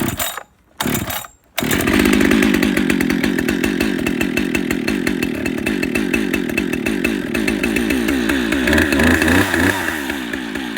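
Cold start of a Husqvarna 572 chainsaw's two-stroke engine with an auto-tune carburetor. Two quick pulls on the starter cord come first, then the engine catches about a second and a half in and runs on steadily. Its pitch shifts and settles a little lower near the end.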